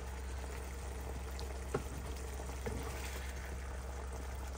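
Prawns simmering in their juices in a frying pan, a soft steady bubbling hiss, with a wooden spatula knocking against the pan a couple of times, the clearest knock a little under two seconds in. A low steady hum runs underneath.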